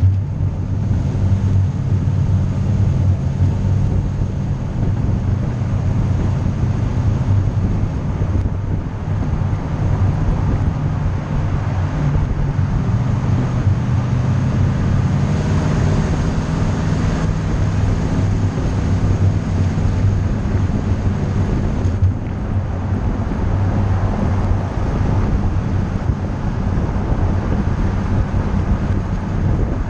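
A vehicle's engine running at speed under heavy wind and road noise. About halfway through its pitch climbs as it speeds up, then holds steady.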